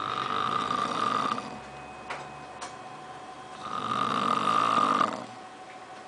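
A man snoring in his sleep: two loud snores, each about a second and a half long, a few seconds apart.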